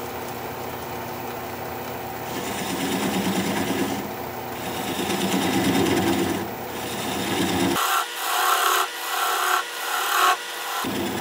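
Wood lathe spinning a live oak bowl while a swept-back bowl gouge cuts away its tenon around the live center, a steady scraping that swells and eases with each cut. Near the end it turns into a run of short cuts, about two a second.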